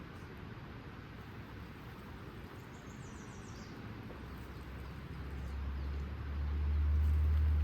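Flowing creek water rushing steadily. A brief high twittering bird call comes about three seconds in, and a deep low rumble swells over the second half and is loudest near the end.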